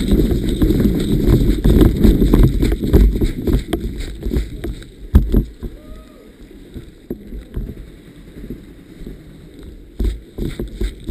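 Heavy rumbling wind and handling noise on the microphone with many knocks, easing off about five seconds in. After that come scattered sharp clicks and knocks.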